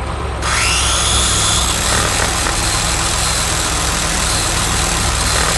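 Power saw cutting through wood, a loud steady rasping noise that starts suddenly about half a second in, over a low engine hum.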